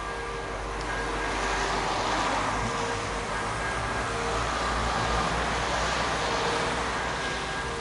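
Electronic church bells, a recording played through a loudspeaker in place of real bells, ring on steadily. They are partly covered by the rushing noise of a passing road vehicle, which swells through the middle and fades near the end.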